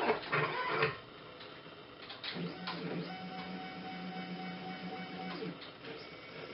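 Stepper motors of a homemade 5-axis CNC machine driving its axes, with no spindle running: a loud whine of several pitches for about the first second, then after a short lull a steadier, quieter hum at one pitch for about three seconds as an axis moves at constant speed.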